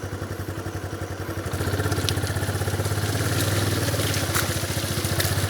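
Motorcycle engine running at low revs with an even, steady pulse, picking up in level about a second and a half in, with a few light clicks over it.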